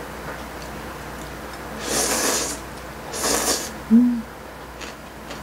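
A person slurping spicy stir-fried noodles in two breathy pulls about two and three seconds in, then giving a short hummed "mm" with her mouth full.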